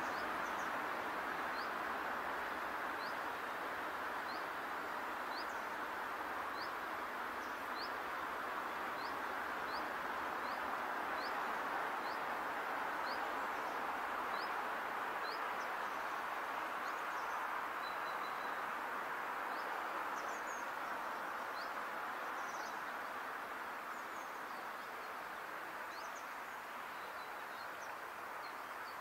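A small bird repeating a short, high, rising chirp about one and a half times a second, then calling more irregularly in the second half, over a steady rushing outdoor noise.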